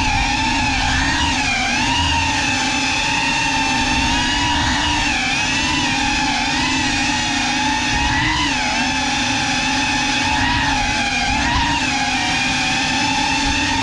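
GEPRC CineLog 35 6S cinewhoop drone's motors and ducted 3.5-inch propellers whining steadily, the pitch dipping and rising with small throttle changes.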